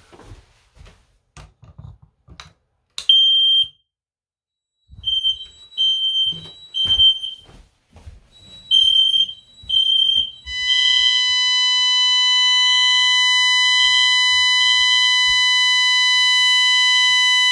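Smoke detector set off with its test button, sounding high-pitched alarm beeps: a single beep about three seconds in, then repeating groups of beeps in the fire-alarm pattern. About ten seconds in a loud, steady alarm tone joins it and holds to the end. A few faint knocks come in the first seconds.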